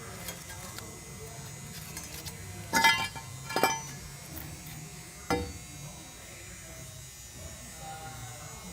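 A steady low electric buzz, broken by three short ringing metallic clinks: two close together about three seconds in, and a weaker one a little past five seconds.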